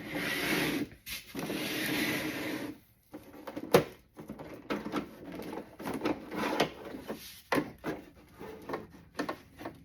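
Toy van and figures being handled: two stretches of rubbing or scraping, a single sharp click a little before four seconds in, then a run of small clicks and knocks.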